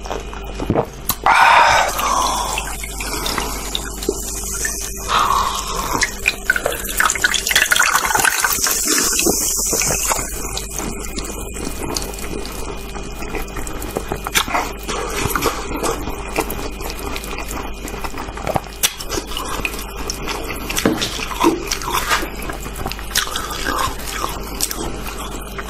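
Packed crushed ice being bitten, squeezed and handled, with many small crackles and clicks and water dripping into a metal pot. A few louder crunches come near the start.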